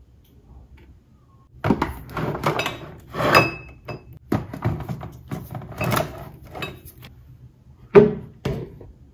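Jars, cans and bottles being shifted around on a pantry cupboard shelf: a run of knocks and clatters, then two sharper knocks near the end.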